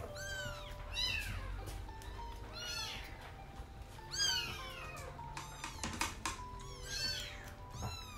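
Young kittens mewing over and over, in short high-pitched cries that rise and fall, over background music.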